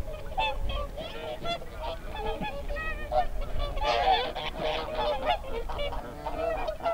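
A flock of whooper swans calling, many calls overlapping without a break.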